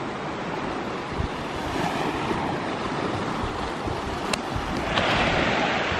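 Sea waves washing onto a beach, with wind buffeting the microphone; the surf swells louder about five seconds in.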